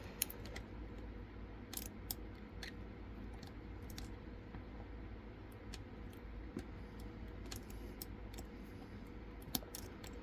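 Faint, scattered metallic clicks of a lock pick being worked inside a Mila 3-star TS007 euro cylinder, pushing at its spring-loaded sliders, over a steady low hum.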